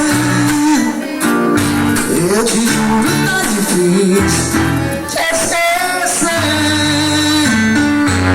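Forró band music: a voice singing over plucked guitar with a steady bass line.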